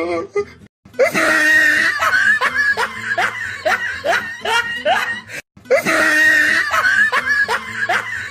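Laughing sound effect: a string of short laughs, about two a second, that breaks off about five and a half seconds in and then plays again the same way.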